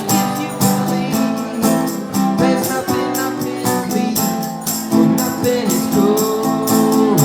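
Live acoustic music: a strummed acoustic guitar playing a steady rhythm, with sharp, evenly spaced high strokes several times a second.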